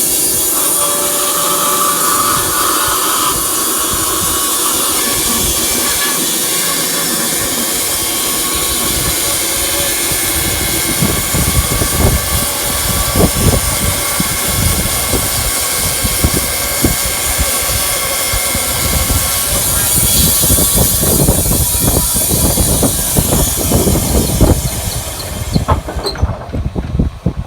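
Wood-Mizer LT15 Wide bandsaw mill sawing through an elm burl: a loud, steady whine and rush of the running blade and motor. Irregular knocks and crackles join in from about ten seconds in, and the high whine cuts off about a second before the end.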